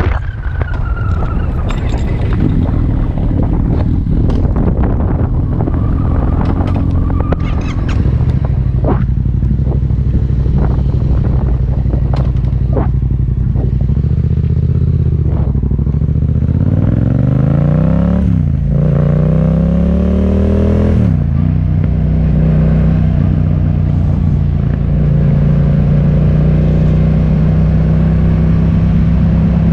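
Motor vehicle engine running under way, with scattered knocks and rattles in the first half. Past the middle it revs up twice, each rise dropping off sharply as it shifts gear, then it settles to a steady cruising note.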